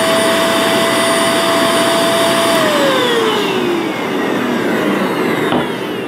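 Eureka Forbes Easy Clean Lite handheld vacuum cleaner running on suction through its hose, a steady motor whine over rushing air. About two and a half seconds in it is switched off, and the whine falls in pitch as the motor spins down.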